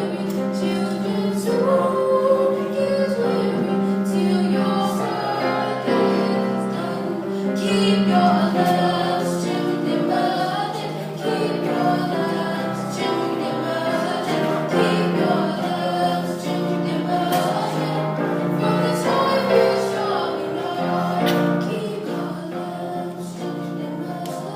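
A choir singing, several voices together holding long sustained notes.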